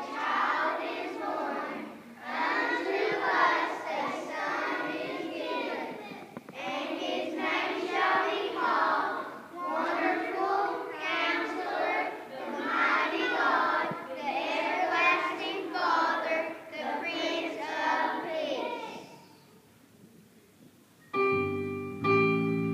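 Children's choir singing in sung phrases. Near the end the singing stops, and after a short pause handbells start ringing, several clear notes struck together.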